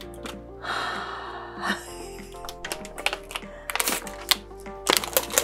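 Plastic food packaging being crinkled and opened, a rustle followed by a string of sharp crackles that grows louder towards the end, over background music.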